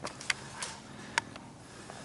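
Two sharp snaps of airsoft gunfire about a second apart, with a fainter click between them, over a low background hiss.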